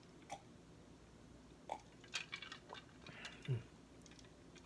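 Close-miked eating and drinking mouth sounds: scattered soft clicks and smacks of chewing, with a low thump about three and a half seconds in.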